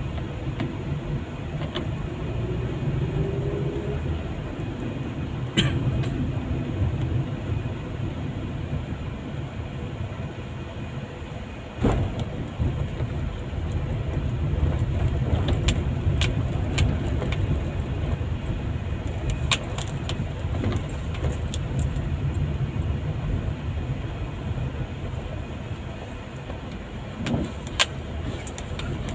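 Road noise inside a moving car's cabin: a steady low rumble of engine and tyres, with a few short sharp knocks and clicks scattered through it on the rough road.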